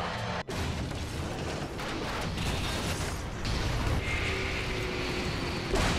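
Dramatised sound effects of a jet airliner's fuselage skin ripping apart at altitude: after a split-second drop-out, a continuous loud rumbling rush of noise, with sustained tones entering about four seconds in.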